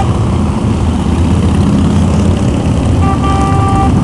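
A procession of cruiser motorcycles passing at low speed, their engines making a loud, steady, deep rumble.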